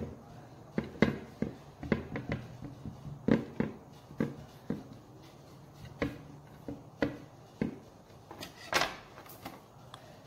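Pav buns being cut with a small knife and handled on a ceramic plate: irregular sharp clicks and knocks, roughly one or two a second, with the loudest cluster near the end.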